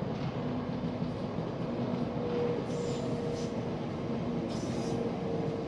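Electric passenger train running past: a steady wash of wheel-on-rail noise with a faint low hum and a higher hum that come and go.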